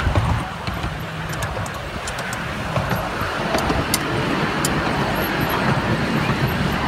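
A 10¼ inch gauge miniature railway train in motion, heard from an open coach: a steady rumble of wheels on the track with scattered sharp clicks and rattles.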